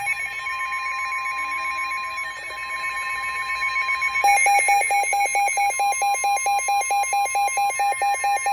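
NOAA Weather Radio warning alarm tone, a steady high tone, under a weather radio's rapid alert beeping. The beeping stops for the first four seconds and resumes about four seconds in. It signals that a new warning is about to be read.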